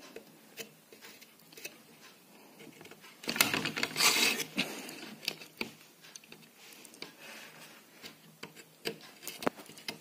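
Small clicks and taps of metal tweezers and a soldering-iron tip working on a circuit board around a push-button switch, with a louder brief scraping rustle about three to four and a half seconds in.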